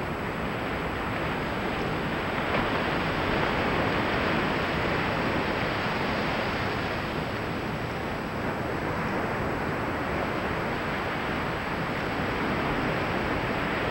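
Ocean surf breaking and washing up a flat sandy beach: a steady rush of water that swells and eases slowly as the waves come in.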